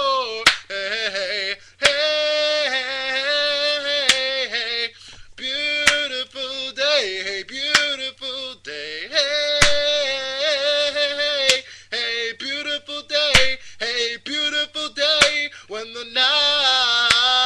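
Wordless singing of a song, a male voice in long held notes that glide between pitches, with a sharp click about every two seconds.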